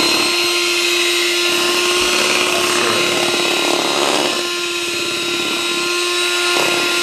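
Electric mixer running at a steady speed, its beaters whipping a heavy cream and sweetened condensed milk ice cream base to thicken it. A steady motor hum that dips a little in level midway.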